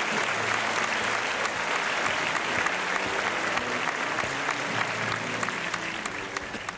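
Audience applauding, a dense patter of clapping that fades out near the end.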